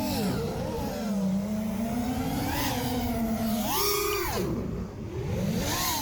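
FPV racing quadcopter's brushless motors and propellers whining, the pitch rising and falling with the throttle. About four seconds in the pitch climbs sharply and holds high, then drops away briefly as the throttle is cut before it picks up again near the end.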